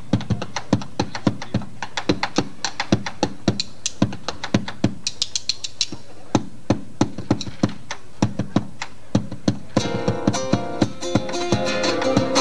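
Bombo legüero solo played with two sticks, sharp strikes on the skin head and the wooden rim in a driving chacarera rhythm, about three to four strokes a second. About ten seconds in, guitars and the rest of the band come back in over the drum.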